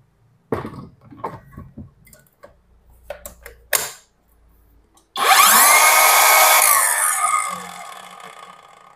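MT Masaki MT-6800 cordless circular saw run briefly with no load: clicks and knocks as the saw is handled, then about five seconds in the motor spins up to a high whine, is let go after about a second and a half, and the blade winds down slowly over a couple of seconds because the saw has no electric brake.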